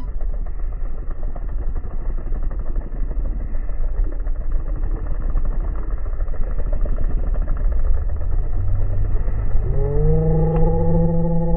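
Pit bike engines running as the bikes ride the dirt track, a rough, buzzing engine noise. About ten seconds in, the nearest bike revs up, its pitch rising quickly and then holding steady and loud.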